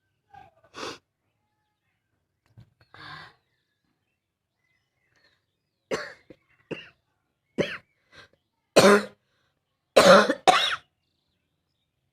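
A woman's barking cough: a string of short, sharp coughs, a few faint ones at first, then louder ones from about six seconds in, the loudest coming in quick pairs near the end.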